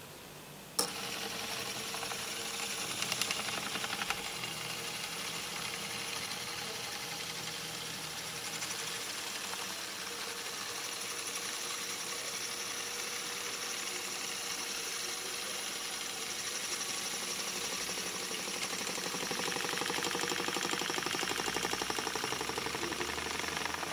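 Small stepper motor running steadily, a mechanical whir with a fine, fast buzz, switching on with a click about a second in and growing slightly louder near the end.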